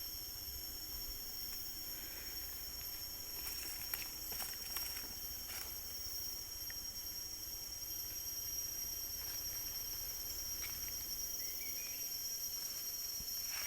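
Forest ambience dominated by a steady, high-pitched insect drone, with a few faint clicks and rustles and a brief rising chirp near the end.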